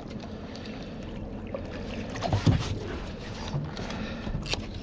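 Steady low hum from a boat's engine, with water and wind noise around it. A louder knock or splash about halfway through.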